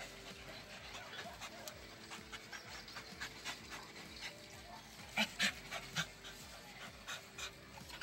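Dog panting close by, with scuffing and scratching clicks from paws working in sand throughout. A few louder sharp scrapes come just after the halfway point.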